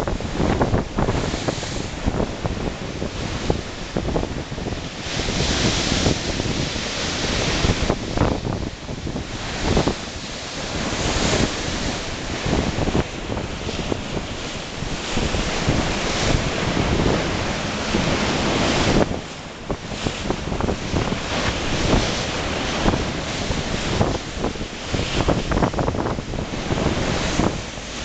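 Choppy sea surf: small waves breaking and washing in close by, swelling and easing every few seconds, with wind buffeting the microphone in gusty rumbles.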